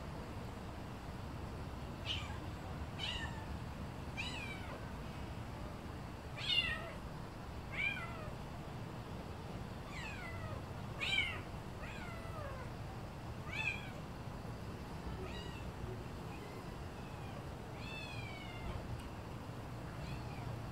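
Kitten mewing over and over: about a dozen short, high-pitched mews, each falling in pitch, one to two seconds apart.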